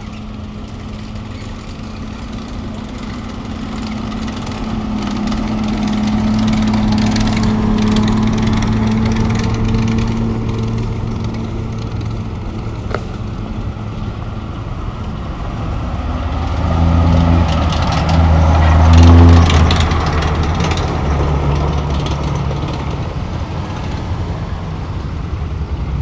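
A column of WWII-era German military trucks and a half-track driving past one after another: engine drone swells as each one passes. The loudest pass, about 19 s in, is a large half-track whose engine note mixes with a rapid mechanical clatter.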